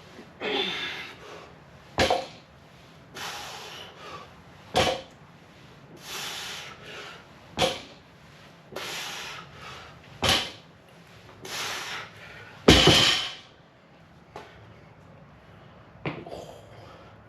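Deadlift reps with a heavy barbell: a loud breath before each pull and a short sharp knock as the plates come back down to the floor. This happens five times, about every three seconds, and the last knock is the loudest.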